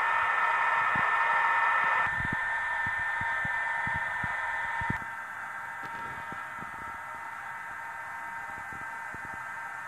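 ESU sound decoder in an H0 model of a Stadler KISS electric multiple unit playing its standing-train sound through the model's small loudspeaker: a steady fan-like hiss with several held tones. It steps down in level about two seconds in and again about five seconds in.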